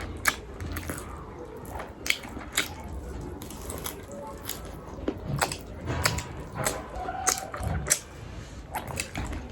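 Close-up eating sounds: chewing and biting rice and a chicken leg piece, with many sharp wet mouth clicks and smacks at an uneven pace.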